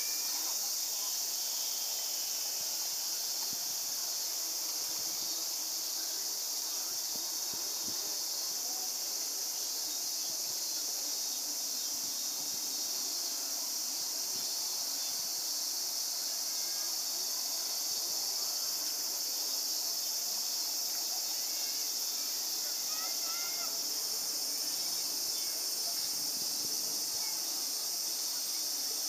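Insects, crickets or similar, shrilling in a steady, unbroken high-pitched chorus.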